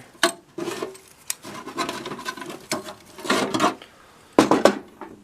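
Hand rummaging in a nearly empty toolbox: loose hand tools clink, rattle and scrape against each other and the box, with two louder scrapes in the second half.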